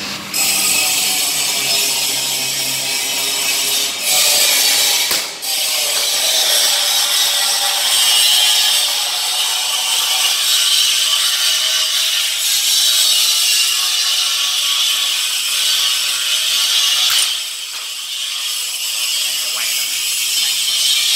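A power tool runs steadily with a high-pitched grinding noise, then cuts off abruptly at the end. Two sharp cracks stand out about four and five seconds in.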